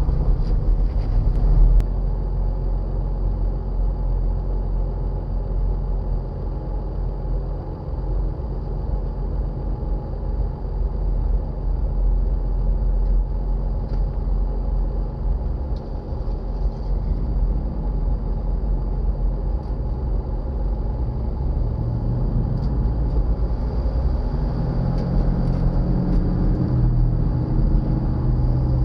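Jeep Wrangler Rubicon driving slowly up a rocky dirt trail, its engine running at low speed with a steady low rumble. The engine note rises and grows louder near the end as it climbs.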